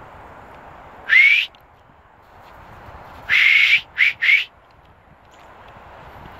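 A person whistling: one short rising whistle about a second in, then a longer whistle followed by two quick short ones.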